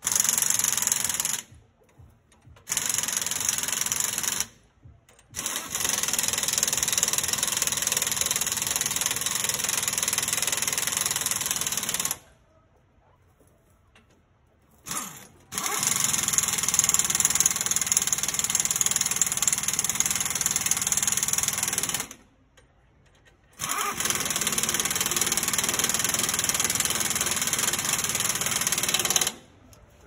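Impact wrench hammering nuts down on the mounting of a new steer-axle leaf spring on a Freightliner Cascadia truck. It runs in about five bursts of a few seconds each, with short pauses between.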